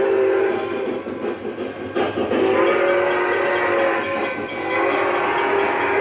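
A model steam locomotive's sound-system whistle blowing long chime blasts, broken briefly about a second in and again past the middle, over the running train.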